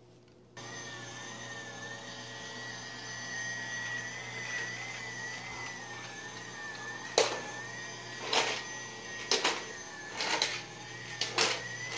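Battery-powered toy vacuum cleaner running, a steady whirring hum with a slightly wobbling whine that switches on about half a second in. In the second half, several short clattering bursts come as it is pushed over the rug.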